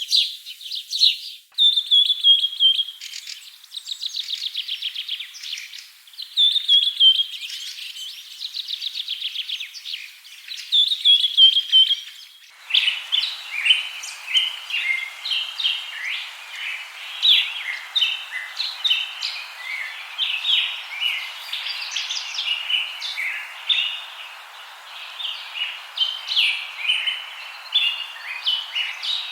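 A songbird sings repeated trilling phrases that drop slightly in pitch. About twelve seconds in, this gives way abruptly to a busier chorus of many short bird chirps over a steady hiss.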